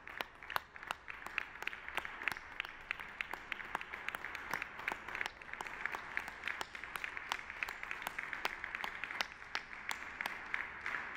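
A small group applauding, with one clapper's strokes standing out sharp and distinct, about two or three a second, over the steadier clapping of the rest.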